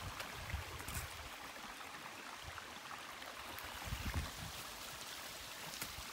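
Shallow mountain creek trickling over rocks, a steady hiss of running water, with a few low thumps about four seconds in.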